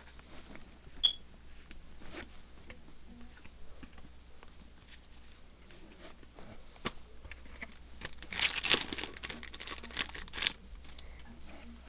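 Yu-Gi-Oh! trading cards being handled and flicked through, with the crinkling of a foil booster-pack wrapper; the crinkling is loudest from about eight to ten seconds in.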